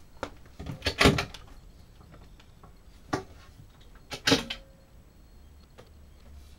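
A few sharp knocks and clicks, the loudest about a second in, with two more near three and four seconds in.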